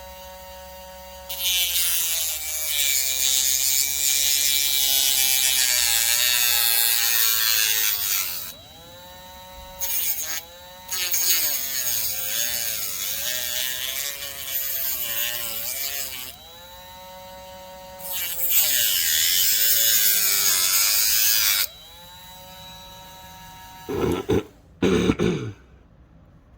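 Small high-speed rotary tool cutting out the cracked plastic windscreen of a die-cast toy car, its whine dropping in pitch under load in three long cutting passes and recovering as it runs free between them. A few knocks near the end.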